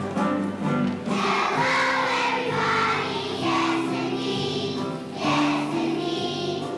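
A choir of first-grade children singing a song, with instrumental accompaniment holding steady notes underneath.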